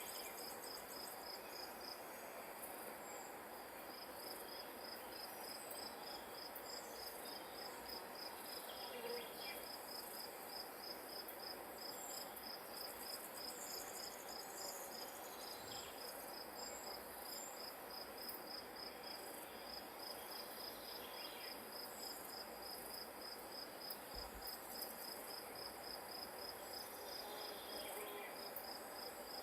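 Grass insects chirping in a steady, high-pitched pulsed trill that breaks off briefly a few times, over a soft even hiss of wind.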